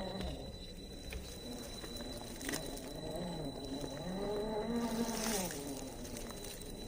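Small brushed electric motor and gear drive of a 1/10 RC rock crawler whining, rising and falling in pitch with the throttle. There is a short pull about three seconds in and a longer one near the middle, with a few scattered clicks.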